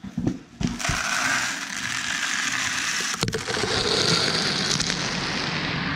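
Coarse water softener salt poured from a plastic bucket into a plastic broadcast spreader hopper: a steady rush of granules pattering onto the plastic, after a few knocks as the bucket is brought over.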